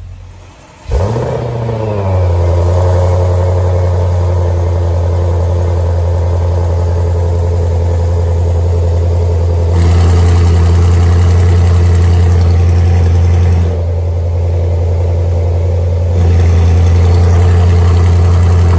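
Audi RS7's twin-turbo V8 starting up through a catless valvetronic aftermarket exhaust: it catches about a second in, flares and settles into a steady, deep idle. The exhaust note steps louder about ten seconds in, drops back briefly around fourteen seconds, then gets louder again.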